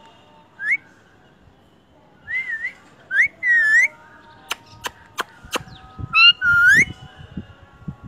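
Indian ringneck parakeet whistling: a short rising note, then wavering up-and-down whistles in bursts, with a few sharp clicks in the middle.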